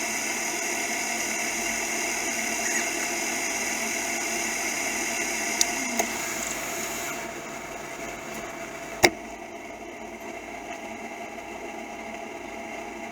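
New Holland CX8070 combine harvester running steadily under load while harvesting rapeseed, a machine drone with several steady tones. A little past halfway the higher part of the sound drops away and it grows quieter, and a sharp click comes about two seconds later.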